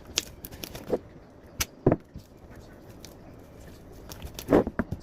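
A few short knocks and clicks, with the loudest about two seconds in and a longer dull thud about four and a half seconds in.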